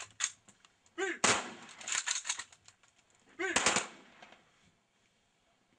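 Soldiers' rifles firing a ceremonial salute into the air: a ragged volley of sharp cracks about a second in and another about three and a half seconds in, each followed by scattered straggling shots.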